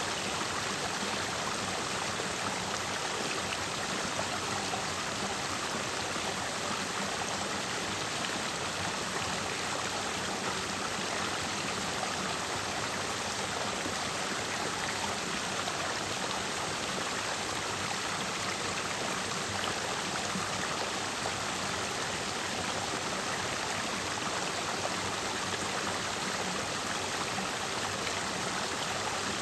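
Clear mountain stream flowing over and between rocks: a steady, even rush of water.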